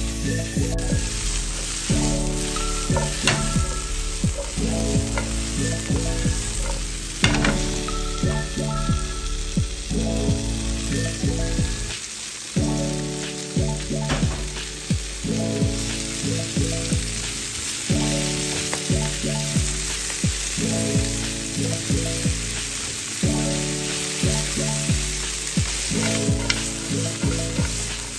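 Green beans sizzling in hot oil in a nonstick wok, stirred with a spatula that clicks and scrapes against the pan now and then. Background music with repeating chords plays over it, pausing briefly near the middle.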